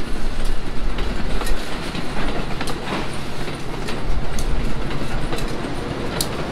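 Train rolling along the track, its wheels clattering over the rails with many sharp clicks and a few brief high squeaks.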